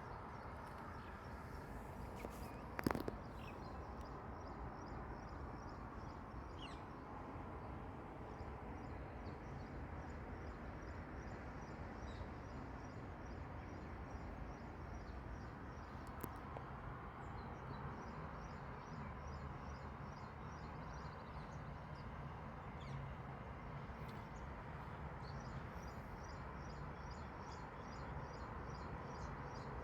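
Outdoor nature ambience: a steady low background rumble under a long run of rapid, evenly repeated high chirping from small creatures, broken by a few short pauses. There is one sharp click about three seconds in.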